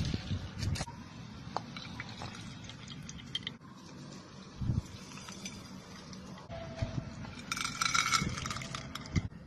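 Hands squeezing and crushing water-soaked floral foam coated in glitter, giving wet crunchy squishing with fine crackling and squelching water. The texture changes abruptly twice, and the crackling is densest near the end.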